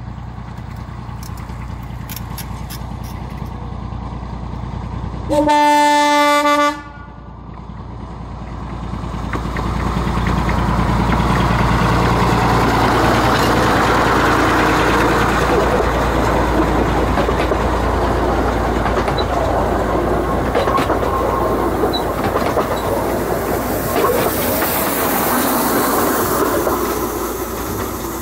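Diesel locomotive of a 15-inch gauge miniature railway sounds its roof-mounted air horn once, a single steady note just over a second long about six seconds in. The train then runs past close by, its engine running and its wheels clattering on the track, louder from about nine seconds in.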